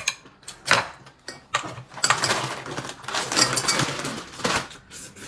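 Eating at a meal table: scattered sharp clicks of chopsticks against bowls and plates, with a denser, noisier stretch of about two seconds in the middle.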